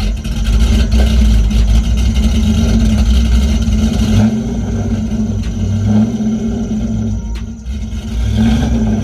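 LS1 V8 in a box-body Chevrolet running at the exhaust, a deep steady idle with small rises in revs about halfway through and near the end. The owner feels it still needs a tune and the idle raised.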